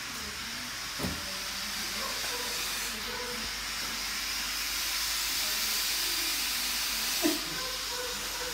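A steady hiss, slightly louder in the middle, with two short sounds, about a second in and near the end.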